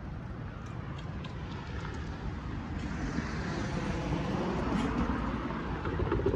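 A car driving past on the street, its tyre and engine noise swelling from about halfway through and loudest near the end.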